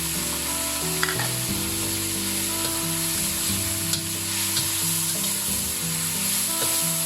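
Pork and garlic sizzling in a hot pan while being stirred and tossed with seasoning, with a few sharp clicks of the utensil against the pan.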